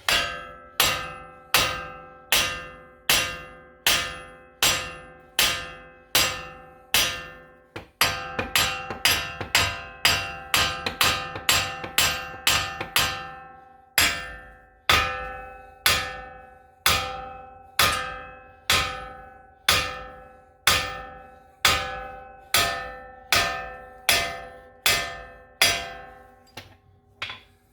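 Steady hammer blows on the 2007 Ford Explorer's rust-seized front wheel hub, each strike ringing like struck metal, to drive it loose. The strikes come a little more than once a second, quicken to two or three a second for a stretch about a third of the way in, then settle back to the slower pace.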